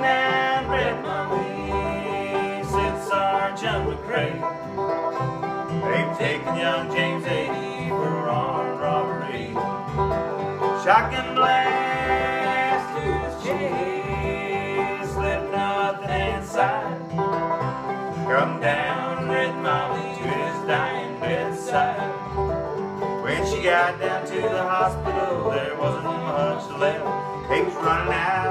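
Bluegrass trio playing: five-string banjo rolls over strummed acoustic guitar, with an upright bass plucking a steady beat.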